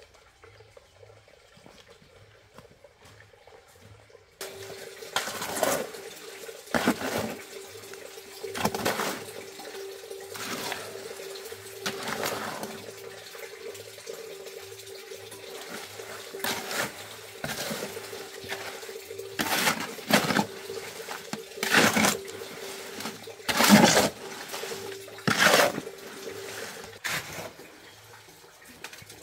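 Water running steadily with a low steady hum, starting about four seconds in and stopping near the end, with repeated louder splashing surges every second or two.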